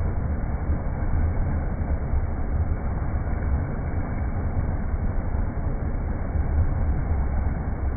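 River water rushing as a steady, deep rumble with no breaks.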